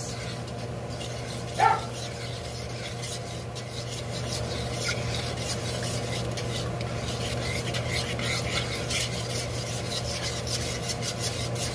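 A spoon stirring a soy-sauce glaze in a pan as a cornstarch slurry thickens it, with repeated scraping strokes over a steady low hum. A brief pitched squeak sounds once, a little under two seconds in.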